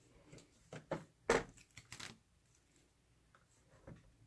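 Scattered light clicks and taps of a plastic square ruler and a plastic stencil being handled against a chalkboard frame, with one sharper knock just over a second in.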